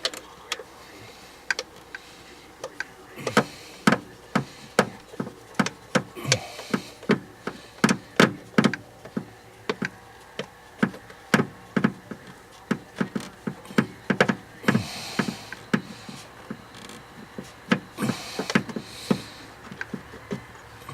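Irregular sharp clicks and taps, about one to three a second, as hands and tools work on the distributor cap and spark plug wires in a truck's engine bay.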